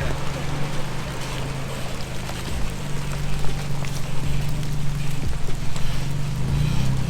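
A vehicle's engine running steadily under load as it climbs a steep trail, a low hum that swells slightly near the end.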